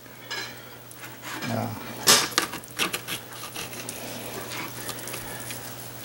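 Kitchen knife cutting and scraping against a plastic cutting board while carving meat off a cooked turkey breast, with scattered clicks and taps, the sharpest about two seconds in.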